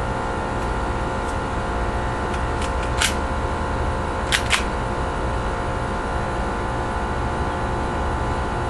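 A steady hum with a few sharp clicks: one about three seconds in, then a quick pair about a second and a half later.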